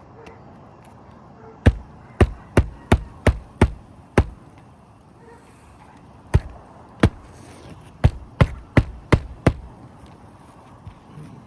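Roofing nails being driven into an asphalt shingle with a magnetic shingle hatchet: a run of seven sharp strikes at about three a second, a pause, then two single strikes and a quicker run of five.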